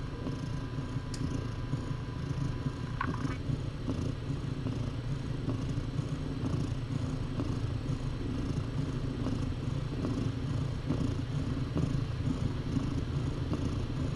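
A cat purring steadily. There is a brief faint squeak about three seconds in.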